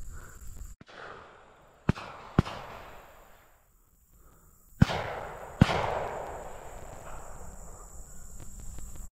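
Four shotgun shots in two pairs, the first pair about half a second apart and the second a little under a second apart. Each shot leaves a long rolling echo that fades over a second or more.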